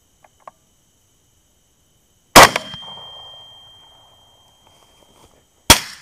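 Two rifle shots about three seconds apart, fired at a hog. The first echoes away over about a second and a half; the second comes near the end, with a short sharp crack right after it, and scores a hit.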